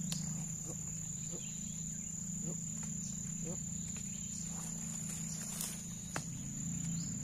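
Steady high-pitched trill of insects, with a low steady hum underneath and a few faint short chirps.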